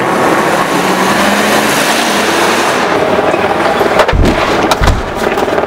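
A car driving up the street with its engine running, then two heavy thumps about four and five seconds in.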